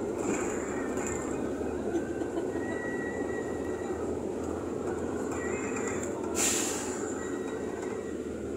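Steady drone of engine and road noise heard from inside the cabin of a moving vehicle, with a short hiss about six and a half seconds in.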